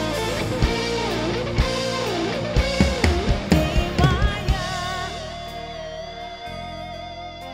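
A live band playing an instrumental passage: a lead guitar with bent, wavering notes over drums. About two-thirds through the drum hits stop and the music dies down to held notes as the song closes.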